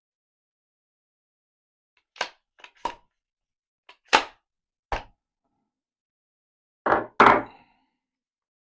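A series of sharp knocks and clicks, about seven separate strikes over several seconds with silence between them, the last two the loudest.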